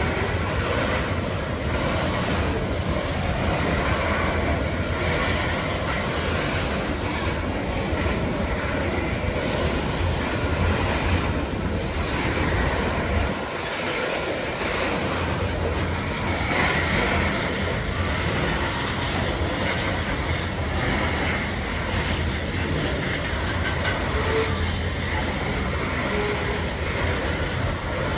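A BNSF coal train's hopper cars rolling past on the rails: a steady rumble with the clickety-clack of wheels over joints, with a brief lull about halfway through.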